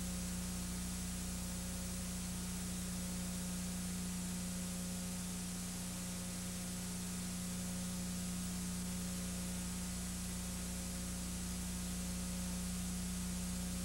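Steady hiss with a constant low electrical hum and nothing else: the noise floor of a silent home-movie transfer with no recorded sound.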